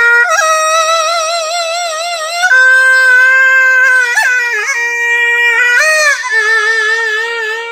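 Homemade Vietnamese kèn, a reed horn with a brass bell, playing a slow melodic phrase of held, wavering notes with quick bends and ornaments. It climbs to a long high note about a third of the way in, then drops back to a lower held note and fades near the end.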